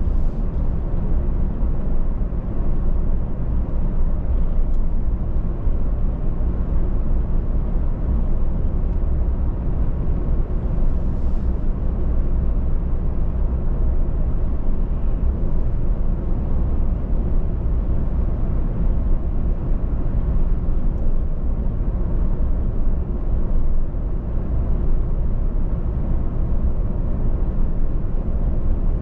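A car driving at steady speed: a constant low rumble of tyre and road noise with the engine underneath.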